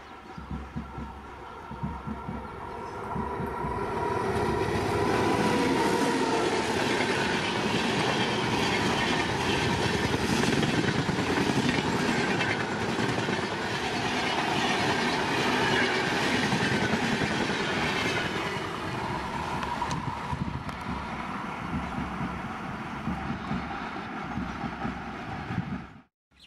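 Express train hauled by a WAP-7 electric locomotive running past at about 105 km/h: the rush and rail clatter of the wheels and coaches build over the first few seconds and hold steady, with a horn sounding faintly. The sound cuts off suddenly near the end.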